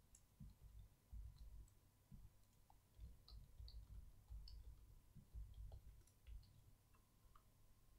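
Faint keystrokes on a computer keyboard, irregular light clicks and dull taps of typing.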